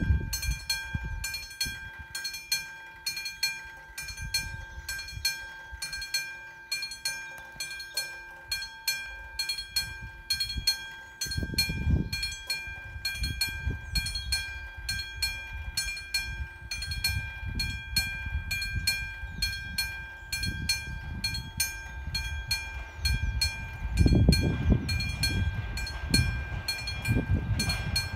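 Level-crossing warning bell of a VÚD 62 crossing signal ringing steadily, struck in even strokes about twice a second. It means the crossing is active and a train is approaching.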